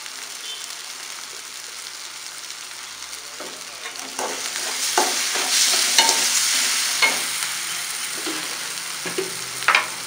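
Onions and spice paste frying in oil in a pan, a steady sizzle that grows louder about four seconds in as the mixture is stirred. A utensil scrapes and knocks against the pan several times.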